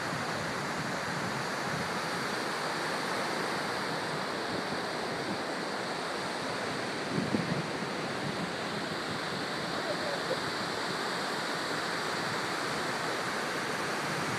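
Small waves breaking and washing up onto a sandy beach: a steady surf wash.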